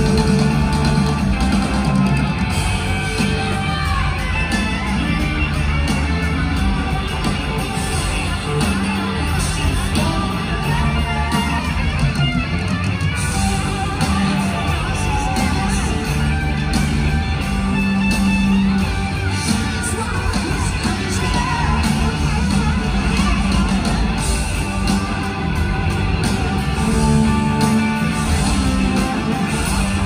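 Live rock band playing, led by electric guitar over bass and drums, with a singer's voice, heard from the audience with the echo of a large hall.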